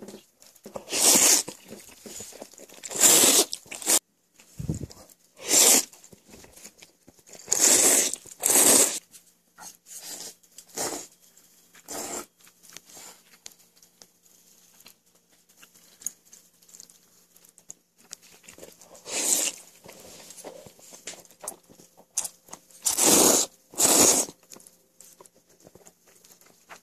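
Someone slurping thick noodles from a bowl of jjampong, a spicy seafood noodle soup: about a dozen short, loud slurps, often in pairs, with quieter clicks and taps between them.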